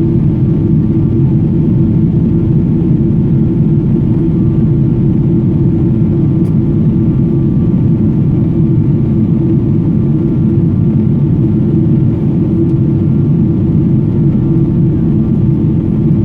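Boeing 777-200ER engine and airflow noise heard inside the passenger cabin: a loud, steady low drone with a faint steady whine above it.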